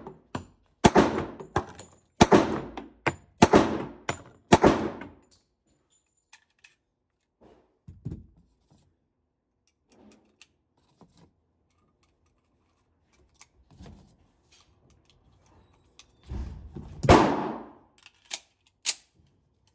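Muffled .45 ACP shots from an AMT Hardballer Longslide pistol: a string of about five, roughly one a second, then small clicks, and near the end a heavier bang followed by two sharper cracks.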